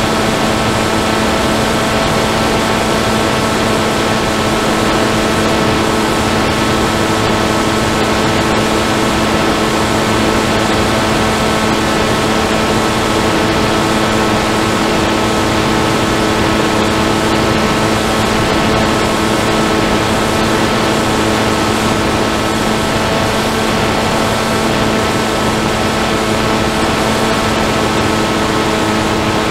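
Motor and propeller of an FPV model aircraft, heard through its onboard camera: a steady droning whine at constant throttle, over a hiss of rushing air.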